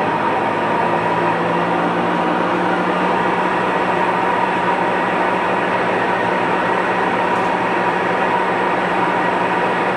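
Huebsch coin-operated top-load washing machine in its spin cycle, running with a loud, steady noise: a constant whine over a low hum. It is a new noise after a new drive belt was fitted, which the owner wonders may be the bearings.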